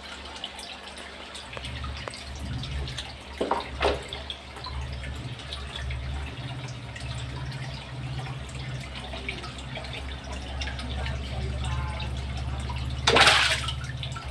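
Aquarium water splashing and dripping as oscar fish strike at pieces of fish held at the surface, with one loud splash about a second before the end over a steady low hum.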